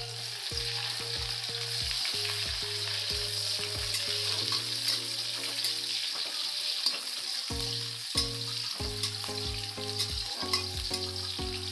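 Sliced onions sizzling as they fry in hot oil in a metal kadai, stirred with a spatula.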